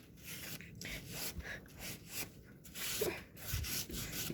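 Irregular rubbing and scrubbing strokes as slime residue is scrubbed off with laundry soap.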